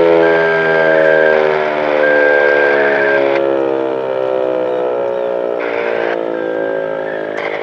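American Signal T-121 dual-tone rotating electromechanical siren winding down, its chord sliding slowly lower in pitch and fading.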